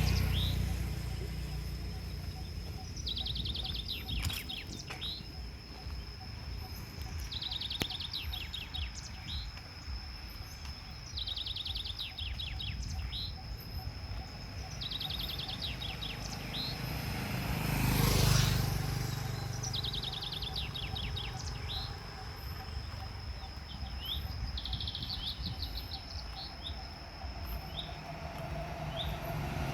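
A bird sings the same short trilled phrase about every four seconds over a steady high insect whine and a low rumble. About eighteen seconds in, a louder rush of noise swells and fades.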